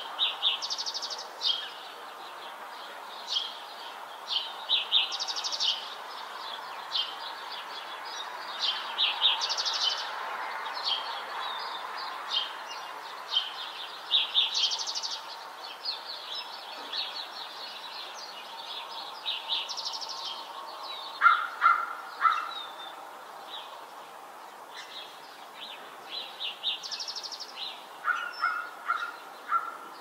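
Morning chorus of several songbirds: quick high chirps and trills overlapping throughout. There is a shorter run of lower repeated notes about two-thirds of the way in and again near the end, all over a steady background hiss.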